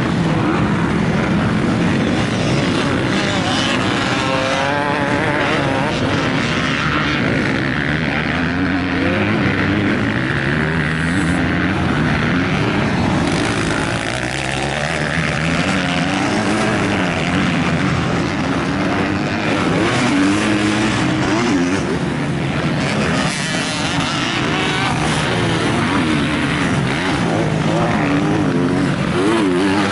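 Motocross dirt bike engines revving on the track, the pitch rising and falling over and over as riders accelerate out of corners and shift gears.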